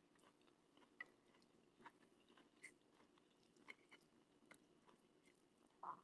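Near silence: faint room tone with a few soft, faint clicks spread about a second apart.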